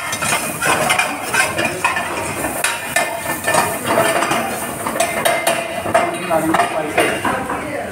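Steel ladle scraping and clinking against a steel frying pan, stirring chopped onions and tomatoes as they cook in oil, with many quick clinks throughout.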